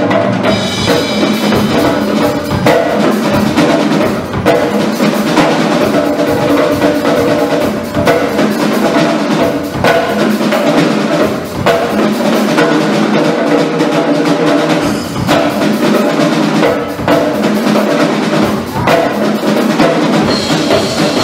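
Two drummers playing a fast, dense percussion duet on a Gretsch drum kit, with bass drum, snare, toms and cymbals struck continuously.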